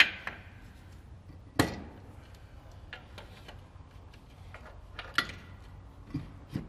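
Steel pry bar clanking against the air-brake hardware of a semi truck as it is set and reset to get a purchase: a few sharp metallic knocks with brief ringing, the loudest right at the start and about a second and a half in, another about five seconds in, with lighter taps between.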